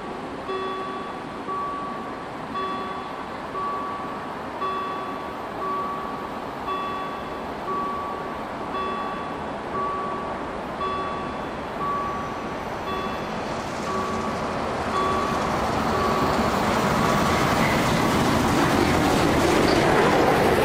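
Level-crossing warning bell chiming about once a second. From about two-thirds of the way through, the rumble and rush of an approaching steam-hauled train (locomotive 01 0509-8) builds steadily until the train is passing the crossing at the end.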